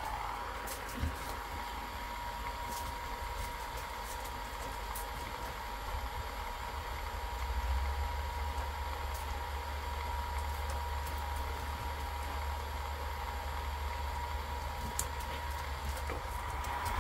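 Steady hum of a small electric fan motor with a constant high whine. A low rumble grows stronger about seven seconds in.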